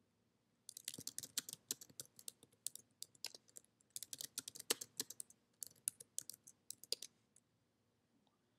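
Typing on a computer keyboard, in two runs of quick keystrokes about three seconds each, split by a short pause: a new password is typed and then retyped at a terminal prompt.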